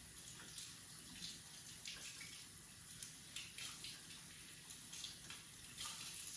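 Faint water running from a sink tap, with a few light clicks.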